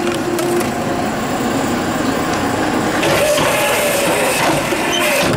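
Tomra Uno reverse vending machine taking in a plastic bottle: the bottle rattles on the powered rollers of the intake chamber while the machine's mechanism runs steadily.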